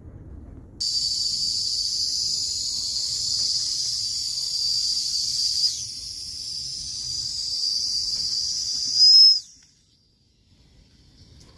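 Steam whistle on a spirit-fired Falk tinplate live-steam locomotive, blown by hand: a high, hissy whistle held for about eight seconds, dipping briefly midway, then rising sharply in pitch near the end before it cuts off.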